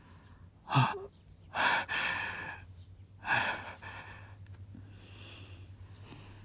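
A person's heavy breathing: a short gasp about a second in, then two long, noisy breaths out, the second starting a little after three seconds, followed by fainter breaths, all over a low steady hum.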